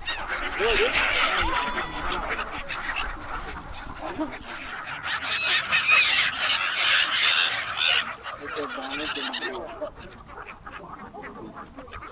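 A flock of waterbirds calling all at once in a dense, clamouring chorus that thins out after about eight seconds.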